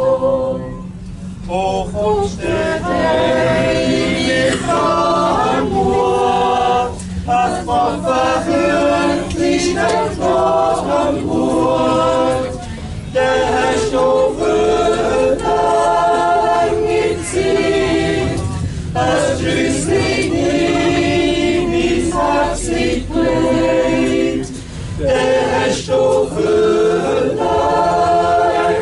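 A group of voices singing together in harmony, unaccompanied, in long held phrases over a steady low rumble.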